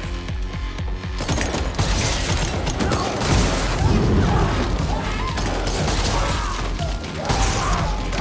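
Repeated shotgun blasts from dragon's breath incendiary rounds, with a loud whooshing burst of flame about four seconds in, over a steady electronic score beat.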